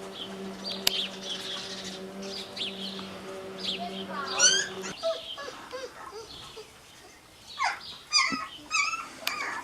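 Deutscher Wachtelhund puppies whining and squeaking in many short, high-pitched cries. A steady low hum runs underneath and stops about halfway through.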